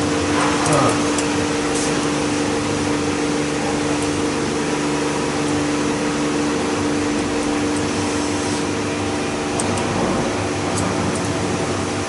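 Diesel common-rail test bench driving a rebuilt Delphi high-pressure fuel pump (33100-4A700, for the Hyundai/Kia D4CB engine): a steady mechanical hum with a steady whine running through it.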